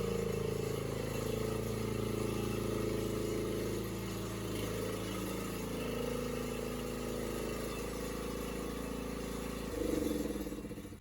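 A motor vehicle's engine running steadily, its pitch falling near the end as it slows down.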